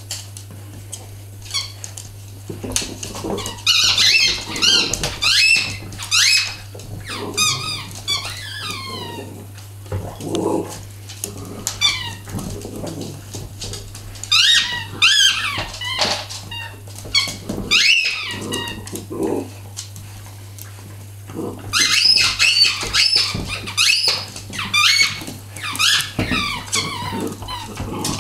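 Rubber squeaky dog toy squeaked over and over as a dog chews it, in three spells of rapid high squeaks.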